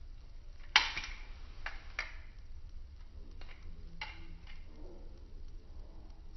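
Stainless-steel butterfly knife trainer being flipped: sharp metal clacks of the handles and blade striking each other, one loud clack about a second in, then several more spaced irregularly, each with a brief ring.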